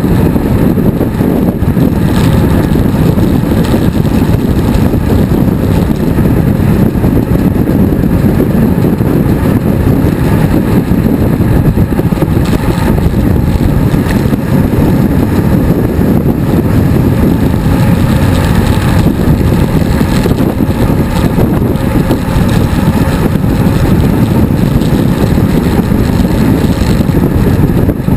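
Steady, loud wind rushing and buffeting over a bicycle-mounted action camera's microphone while riding along at speed, mixed with tyre-on-road noise.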